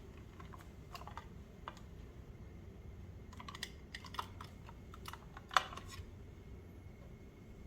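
Irregular light clicks and taps of chopsticks and tableware during a meal, a quick cluster past the middle and the sharpest click about five and a half seconds in, over a low steady room hum.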